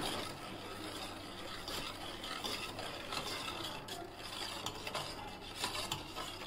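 Metal spoon stirring milk and powdered sugar in a steel bowl, a soft swishing with light scrapes and taps of the spoon against the bowl now and then.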